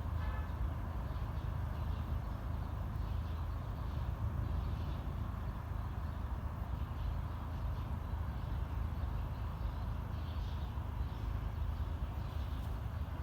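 Steady low rumble of city traffic, with faint bird chirps now and then.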